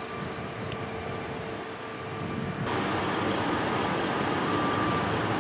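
Heavy vehicle engine idling steadily, getting louder about two and a half seconds in. Near the end a vehicle's reversing alarm beeps once.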